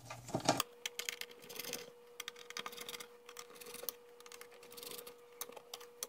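Light irregular metal clicks and taps from a small Phillips screwdriver backing out the tiny screws of a Panasonic Toughbook CF-30's memory-cover panel, with the screws set down and the panel handled. A faint steady tone sounds underneath from about half a second in.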